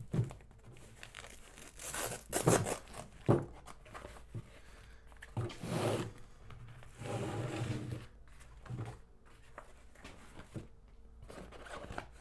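A wrench-set pouch being opened and handled: several short tearing rasps, like its Velcro closure being pulled apart, mixed with crinkling and rustling of the packaging. The loudest rips come a few seconds in, with further ones near the middle.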